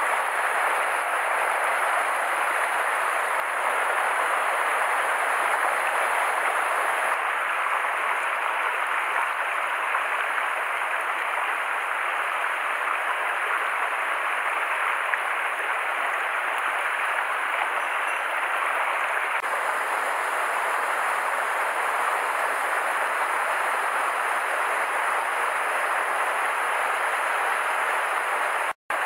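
Mountain stream rushing steadily over and between boulders in small white-water cascades. The sound cuts out for an instant near the end.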